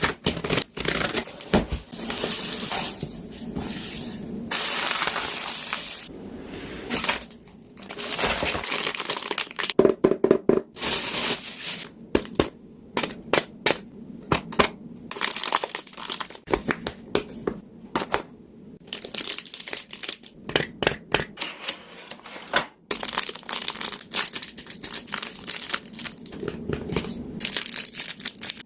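Packaging being opened and handled: plastic and paper wrapping crinkling and rustling in on-and-off stretches, with many scattered clicks and taps.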